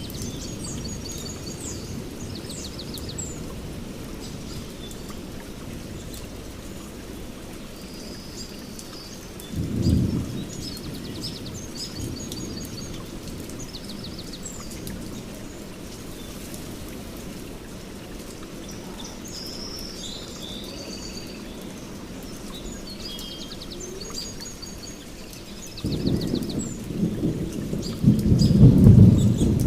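Steady rain with birds chirping on and off throughout. A short roll of thunder comes about ten seconds in, and a longer, louder rumble of thunder near the end.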